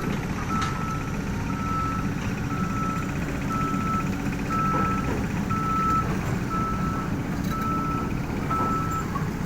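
Backup alarm of a heavy construction machine beeping steadily about once a second, each beep a single tone about half a second long, over the steady rumble of its diesel engine: the machine is travelling.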